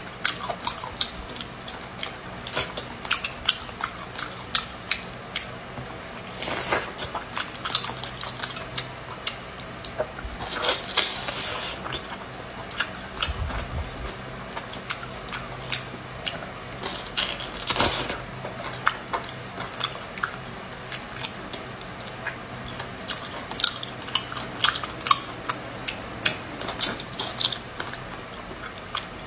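Wet eating sounds of a person biting and chewing octopus tentacles: many short smacking clicks, with a few longer slurps through the stretch.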